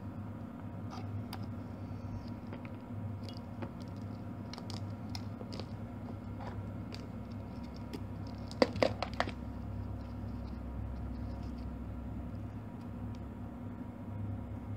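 Small plastic clicks and taps as jumper wires and parts are pulled from a solderless breadboard and handled, with a louder cluster of clicks about halfway through.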